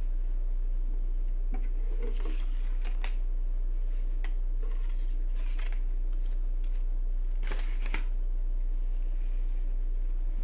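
A slip of paper rustling and crinkling as it is handled and lifted out of a box, in several short rustles about two, five and eight seconds in, over a steady low hum.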